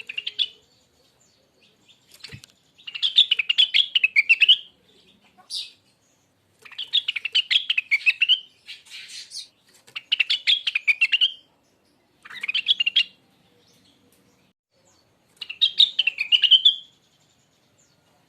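Rengganis songbird singing in repeated phrases of fast, rising-and-falling chirps. There are about five phrases, each a second or two long, separated by short pauses, plus a few single short calls.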